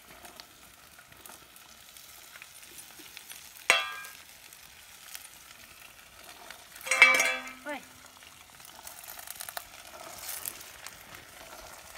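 Fresh green peas frying in a pot over a wood fire, with a steady faint sizzle. A steel spoon and plate clink against the pot as the peas are tipped in: one sharp ringing clink near the middle and a louder clatter about seven seconds in.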